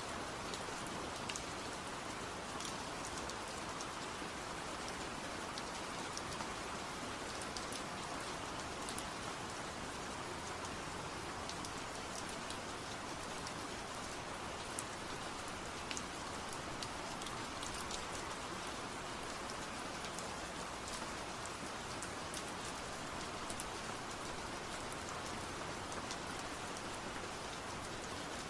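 Steady rainfall: an even hiss of rain with many small sharp drips and patters of drops landing on a surface.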